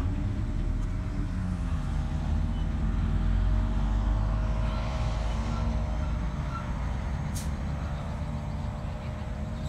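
Paramotor engine and propeller droning steadily overhead, its pitch wavering slightly and dipping a little about seven seconds in, over a low rumble.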